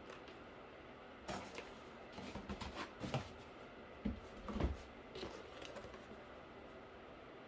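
Cardboard pieces being handled and pressed together: irregular soft knocks and rustles, the loudest thump about four and a half seconds in.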